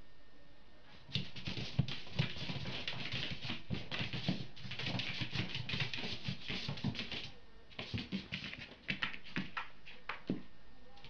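A cat's paws and claws pattering and scrabbling on carpet as it chases a spot of light, in quick runs with short pauses.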